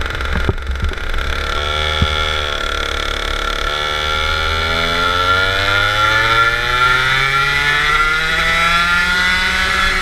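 Go-kart engine heard from the driver's seat, its pitch holding and dipping slightly early on, then rising steadily from about four seconds in as the kart accelerates down the straight.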